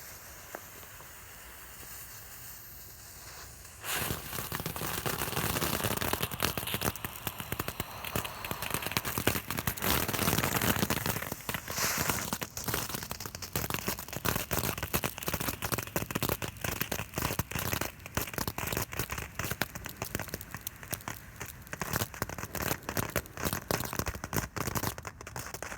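Phantom Fireworks 'Tanks with Sparks' novelty firework going off: a steady fuse hiss for about four seconds, then a dense, rapid crackle of sparks for about twenty seconds that stops abruptly near the end.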